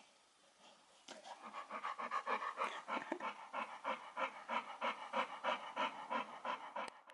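Dog panting rapidly with its mouth open, about four breaths a second, starting about a second in.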